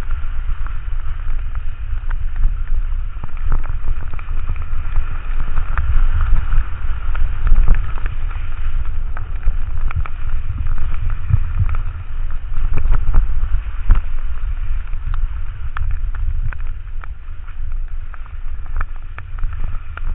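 Wind buffeting the camera microphone during a fast ski descent, a heavy steady rumble, with skis hissing over the snow and scattered sharp ticks throughout.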